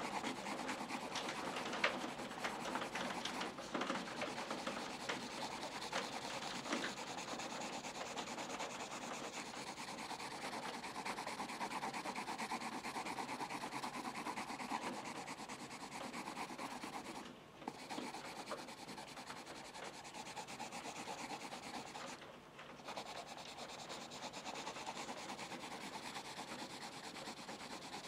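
Pencil rubbing and scratching back and forth on paper in continuous strokes, with two short pauses in the second half.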